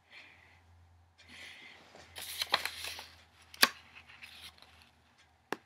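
Rustling handling noise with a few sharp clicks, the loudest click a little past halfway and another just before the end, as hands work close to the recording device.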